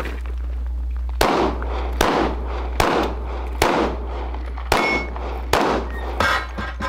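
Glock 25 pistol in .380 ACP fired seven times in steady succession during a competition stage, about one shot every 0.8 s, each with a short echo. One shot near the middle is followed by a brief metallic ring.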